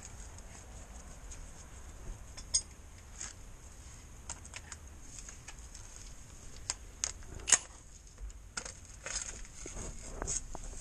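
Metal tools and sockets being handled on a workshop floor: scattered clinks and knocks, the sharpest about two and a half and seven and a half seconds in.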